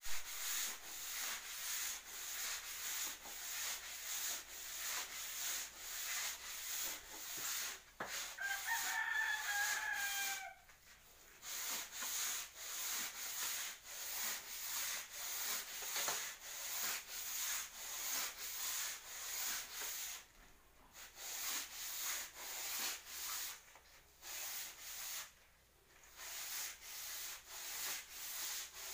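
Repeated scratchy rubbing strokes, about two a second, running on with brief pauses. A rooster crows once about eight seconds in.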